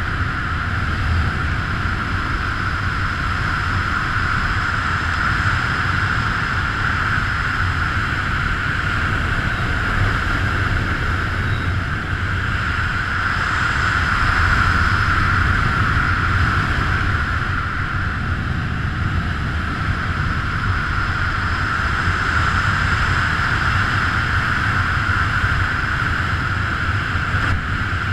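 Steady rush of wind over a body-mounted camera's microphone during a fast speedflying descent, with a hissing note that swells and eases several times.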